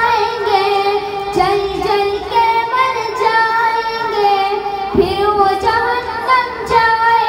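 A young boy singing solo and unaccompanied in a high voice, drawing out long held notes that waver and bend, with a short breath break about a second and a half in and again near five seconds.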